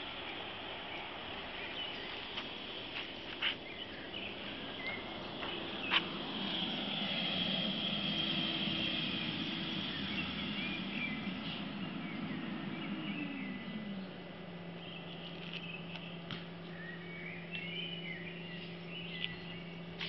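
Small birds singing in short, chirping phrases over steady traffic noise, busiest near the end. A trolleybus passes at the same time: its low hum swells in the middle and drops in pitch about two-thirds of the way through, then holds steady.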